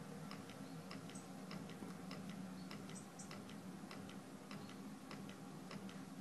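Waste oil boiler running with its burner fan and pumps switched on: a faint steady hum with light, irregular ticking about two or three times a second.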